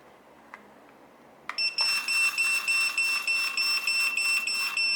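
A click about a second and a half in, then a Retekess T116A restaurant pager going off in its ring-and-vibration mode. A high-pitched buzzer beeps rapidly, about three times a second, over the pager's vibration.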